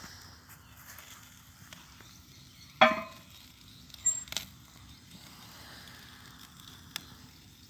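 Meat sizzling faintly over the fire of an outdoor barbecue fireplace, with a sharp ringing metal clink about three seconds in and two lighter clinks a second or so later.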